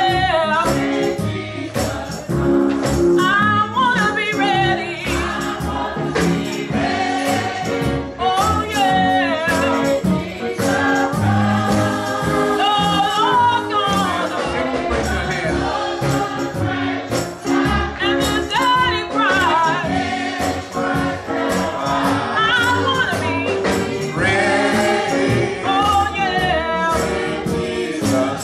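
Gospel choir singing a song with instrumental accompaniment and a steady beat.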